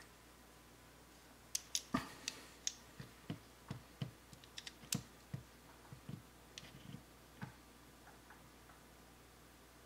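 Faint, irregular clicks and small metallic taps as a digital caliper is handled: its slide moved and its jaws set against brushed-metal peel-and-stick backsplash tiles. The clicks come in a scattered run from about a second and a half in until a couple of seconds before the end.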